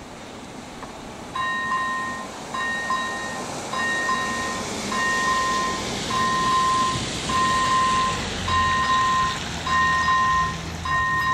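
Level-crossing warning bell (AŽD ZV01 electronic ringer) switching on about a second in, then repeating an electronic two-tone ding roughly every 1.2 seconds. This marks the crossing activating for an approaching train. Under it is a steady hiss of rain and wet road.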